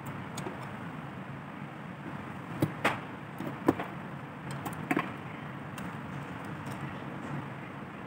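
A metal palette knife and ink tins clinking and knocking against the inking slab a few times while printing ink is mixed, over steady background noise.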